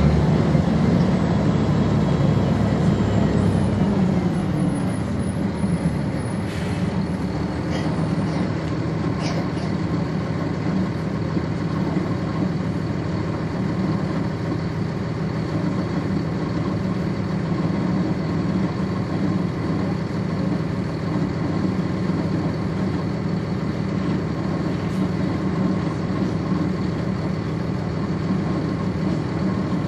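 1999 NovaBus RTS transit bus's Cummins ISC diesel engine heard from on board. Its pitch falls over the first several seconds, then it runs steadily at a low idle. There are a few brief sharp sounds about seven to nine seconds in.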